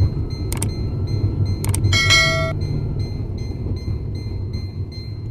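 Car cabin noise on the move: a steady low rumble from the road and engine, with a few sharp clicks and a short rattle about two seconds in. These are loose interior trim pieces rattling on the uneven road, the kind of noise that comes from damaged or loose door-trim clips.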